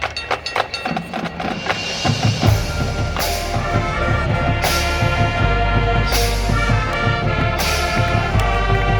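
Marching band playing. It opens with a brisk passage of rapid percussion hits, then about two and a half seconds in the full band comes in with sustained brass chords over deep bass, and sharp crashes land about every second and a half.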